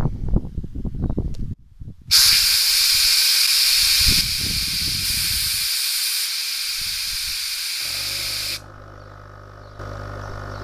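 Pressurised stainless-steel foam sprayer tank hissing loudly, starting abruptly about two seconds in, dropping in level in steps as the pressure falls, then cutting off suddenly. A steady low hum with several even tones begins just before the hiss stops and carries on.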